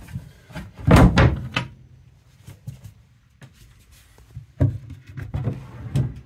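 Wooden cabin-sole floor hatch panels being lifted out by their ring pulls and set aside, giving heavy wooden thuds and knocks with some rubbing. One cluster comes about a second in and another near the end.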